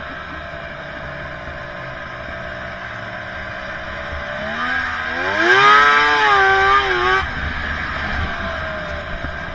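Snowmobile engine running at a steady cruise, then revving up about halfway through, holding high revs for about two seconds with the pitch wavering, before the throttle is let off and it drops back abruptly.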